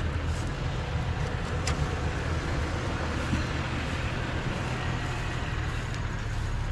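Vehicle engine running steadily with a low, even hum, with a couple of faint clicks.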